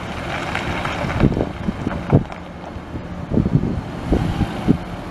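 Suzuki mini truck's F6A three-cylinder gas engine running with a steady low hum, while wind buffets the microphone in sharp gusts several times.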